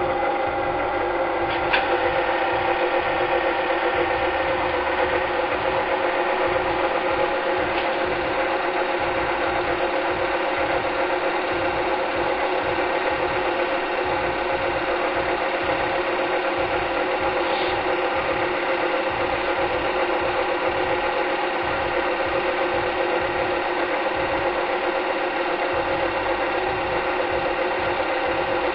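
Cine film projector running: a steady mechanical whirr with a fine, even clatter from the film transport, unchanged throughout.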